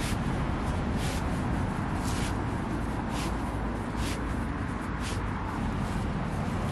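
Steady low rumble of road traffic on a busy roundabout, with short rustles and scrapes about once a second as a foam sleeping mat is rolled up and camping kit is packed.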